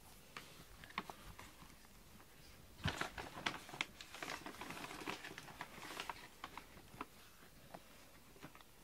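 Grooming brush scratching through a cat's fur in short strokes: a few single scrapes, then a quick run of strokes from about three seconds in until about six and a half seconds, then a few more.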